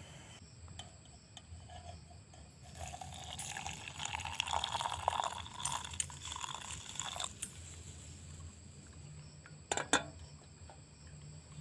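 Hot water poured from a pot into a cup of coffee for about four seconds, the pitch of the pour rising as the cup fills. Near the end comes a single sharp clink.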